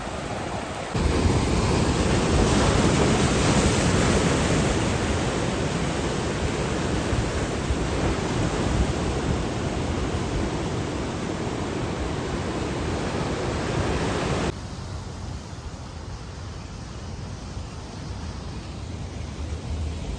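Steady rushing noise of ocean surf and wind buffeting the camera microphone. It jumps louder about a second in and drops back abruptly near 15 seconds, where the clips are cut.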